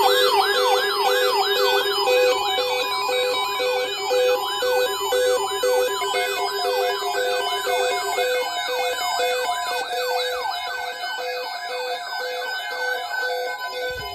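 Several weather radio receivers sounding their alert alarms together for a severe thunderstorm watch: a siren-like tone falling in pitch over and over, several times a second, over a pulsing beep and a steady tone. The alarms start suddenly, and the steady tone stops about eight seconds in.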